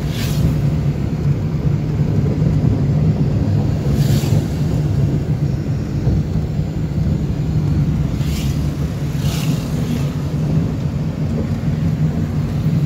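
Car cabin road noise while driving on a highway: a steady low drone of engine and tyres. Brief rushing swishes come four times as vehicles pass close by.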